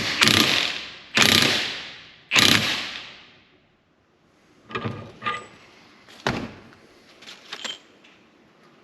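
Hard metal-on-metal blows, three or four in the first couple of seconds, each leaving a ringing tail, while the new U-joint is driven into the steel axle yoke and its retaining clips are fitted. Lighter clicks and taps of metal parts follow.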